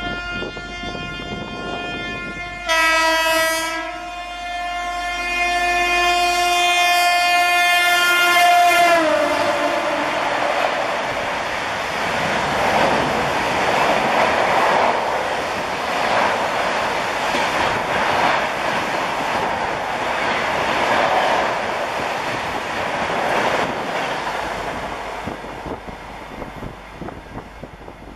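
WAP-7 electric locomotive of the Bangalore Rajdhani Express sounding its horn in one long blast. The blast gets louder for about a second near three seconds in, then drops in pitch as the locomotive passes and cuts off about nine seconds in. The coaches then rush past at high speed with a rhythmic clickety-clack of wheels over rail joints, which fades away near the end.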